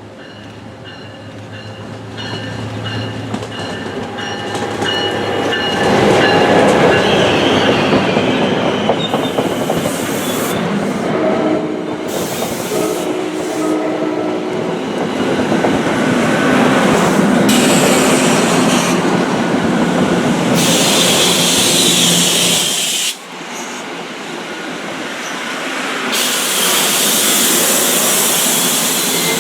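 Locomotive-hauled commuter trains passing close by: engine and wheel-on-rail noise swelling up over the first six seconds, with clatter over the rail joints, wheel squeal and hiss. About 23 seconds in the sound drops off suddenly, then builds again.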